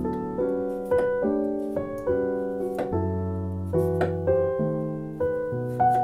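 Gentle solo piano music, single notes and chords struck one or two times a second, each fading slowly.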